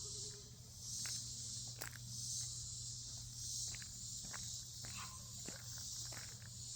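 Summer insect chorus: a high, shrill buzzing that swells and fades about once a second. Scattered sharp clicks and taps sound over it.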